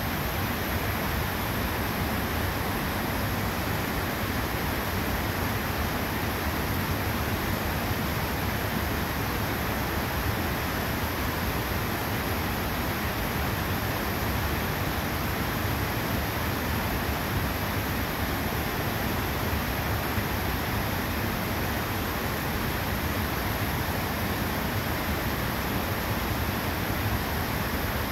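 Steady rush of a waterfall and the creek's rapids pouring over rocks.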